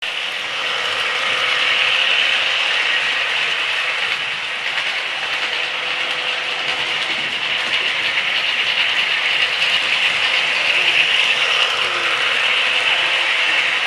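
Several model railway trains running at once: a steady, loud, high whirring of their small electric motors and gearing, with light clicks from the wheels on the track.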